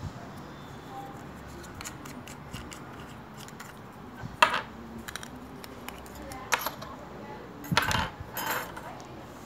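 Small clicks and clacks of large plastic piping-bag couplers and metal piping tips being unscrewed and handled, with a sharp click about four seconds in and a short cluster of knocks near the end as the pieces are set down on a wooden table.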